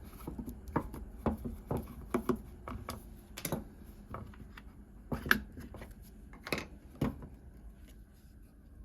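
Irregular clicks and knocks of an old quick-grip bar clamp being handled and opened up, with a few louder sharp snaps in the middle stretch.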